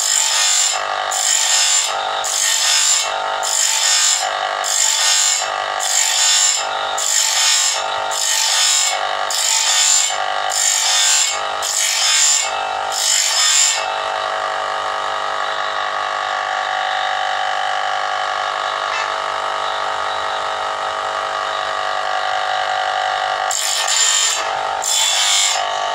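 Electric-motor grinding wheel sharpening the teeth of a long saw blade, one tooth at a time. It comes as a rhythmic rasp of about one stroke a second as each tooth is ground. For about ten seconds in the middle the strokes give way to a steady, even whine, and the strokes return near the end.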